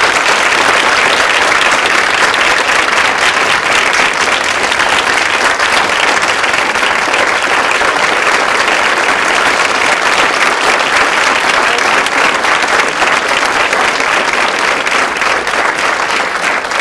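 Large audience applauding, many hands clapping in a loud, steady mass at the close of a talk.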